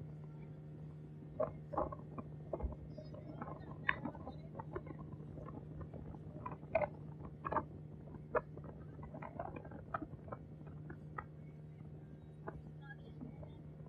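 Boat engine humming steadily at one low pitch, with irregular short sharp sounds scattered over it.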